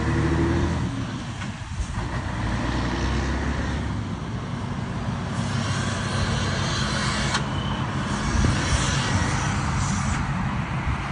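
Diesel truck engine, a Scania 112 six-cylinder in an FNM truck with an exhaust diffuser, running as the truck pulls away. A steady low rumble carries through, with stretches of hiss about halfway through and again later.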